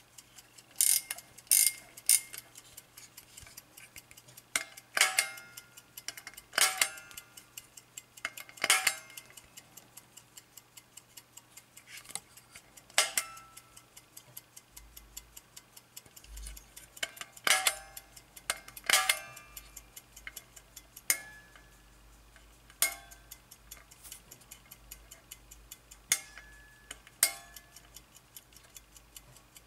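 Soviet AChS-1 aircraft cockpit clock's mechanical movement ticking fast and evenly, with about a dozen louder, sharp clicks at irregular intervals as its chronograph knobs are pressed.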